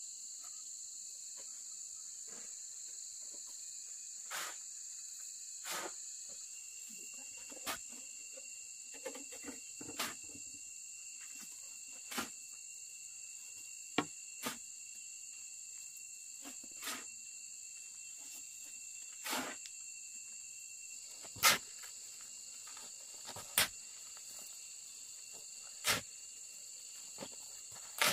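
A steady, high-pitched insect chorus, with another insect joining at a slightly lower pitch about six seconds in. Over it come sharp knocks or snaps every second or two, the loudest about two-thirds of the way through.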